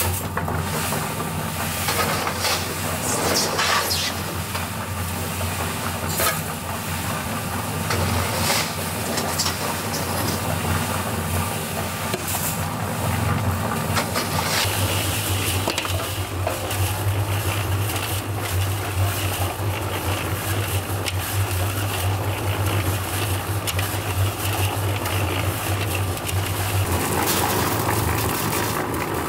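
Electric cement mixer running with a steady hum as its drum tumbles dry lime and sand, with gritty scraping as material is loaded in. Near the end the drum is tipped and the dry mix pours out in a rush.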